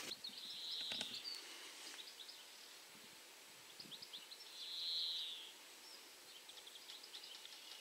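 Birds calling in the background: scattered short chirps and two longer buzzy calls, about half a second in and about five seconds in, over a faint hum of outdoor background noise.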